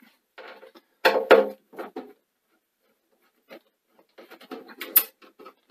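Clicks and knocks of hands working on the metal case of a Sony SL-C9 Betamax video recorder, taking out the screws that hold its top cover. A louder clatter comes about a second in, and a quick run of small clicks comes near the end.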